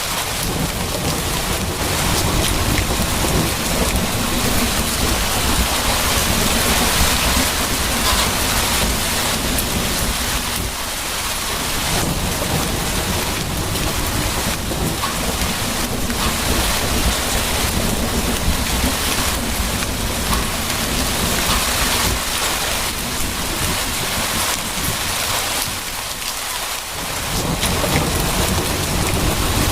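Steady rain falling, with low rolling thunder rumbling underneath; the rumble dies away briefly twice, about a third of the way in and again near the end, then returns.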